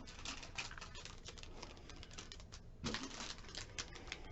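Small metal mounting hardware and its packaging being handled: quick, irregular light clicks and rattles, with a louder clatter about three seconds in.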